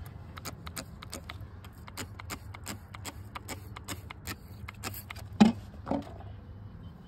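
Trigger spray bottle of soapy leak-detection solution squeezed rapidly, about five short sprays a second, onto brazed copper joints for a bubble test of the nitrogen-pressurised refrigerant lines. Two dull knocks follow near the end.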